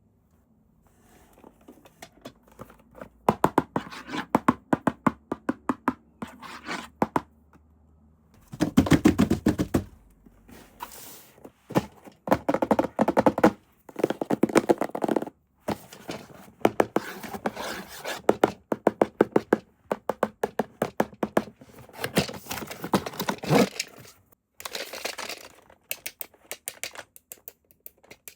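Plastic toy packaging being handled and opened: rapid runs of sharp clicks and taps, with stretches of scraping and rustling.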